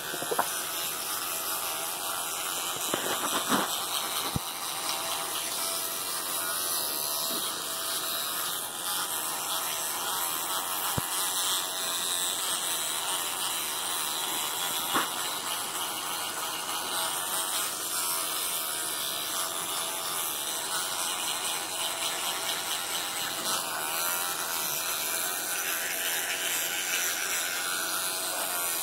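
Electric toothbrush buzzing steadily in a capuchin monkey's mouth as he chews and brushes with it, with an occasional click.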